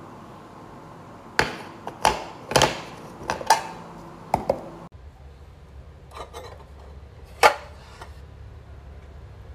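Hard plastic parts of a utensil drainer basket and its clear drip tray knocking and clacking on a countertop as they are handled. There is a quick run of sharp knocks, then a few faint clicks and one loud clack near the end.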